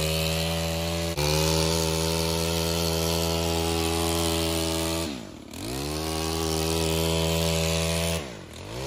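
Engine of a gas-powered Stihl KombiSystem pole trimmer running at high revs while cutting back hydrangea stems. The throttle is let off twice, about five seconds in and near the end: the revs drop sharply, then climb back.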